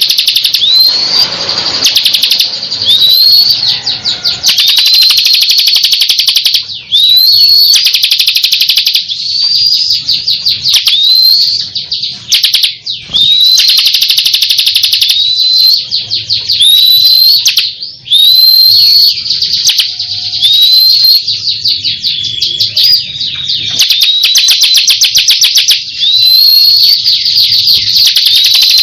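Ciblek kristal, a prinia kept as a songbird, singing non-stop: loud, rapid rattling trills, broken every second or two by a short upswept whistled note.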